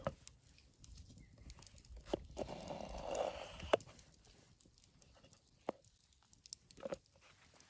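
Folding knife slicing lengthwise through a raw zucchini on a wooden cutting board: a crunchy cut a couple of seconds in that ends with a sharp knock of the blade or halves on the board, with a few light taps on the board later.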